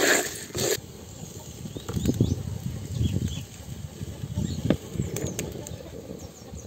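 A wooden spatula stirs vegetables and spices in a clay pot for under a second, then an open wood fire burns with irregular fluttering puffs of flame. Faint bird chirps sound in the background.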